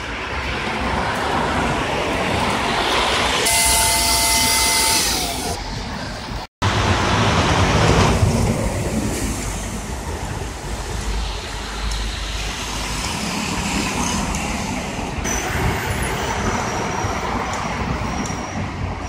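Street traffic running steadily, with low rumble and passing vehicles. About four seconds in comes a two-second hiss with a steady high squeal that drops in pitch as it ends, typical of a heavy vehicle's brakes. The sound cuts out for a moment about halfway through.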